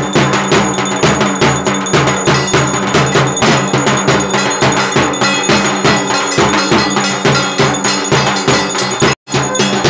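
Ringing metal bells and percussion struck in a steady rhythm, about three strikes a second, as played for a Durga Puja rite. The sound cuts out for a moment near the end.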